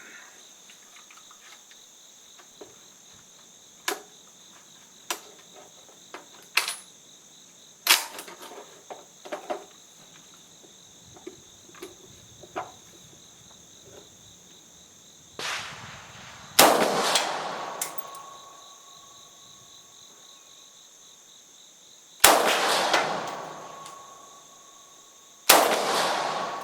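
Three single shots from a Bulgarian AK-74 rifle firing 5.45×39 mm 7N6 military ammunition, each a sharp crack with a long trailing echo: one about two-thirds of the way in and two more a few seconds apart near the end. Fainter sharp clicks and knocks come before them, over steady high insect buzzing.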